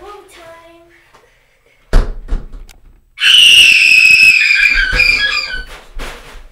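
A glass shower door thuds shut about two seconds in, then a boy lets out a loud, very high-pitched shriek lasting about two and a half seconds, its pitch sagging slightly toward the end.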